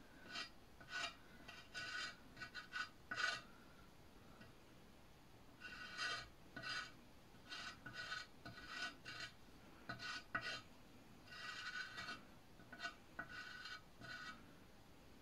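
Chalk scraping over the side of a plant pot in short, quick strokes as a design is sketched on it, with a pause of a couple of seconds about four seconds in.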